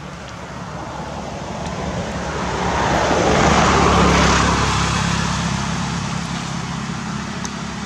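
A motor vehicle passing by: a low engine hum with broad road noise that swells to its loudest about halfway through, then slowly fades.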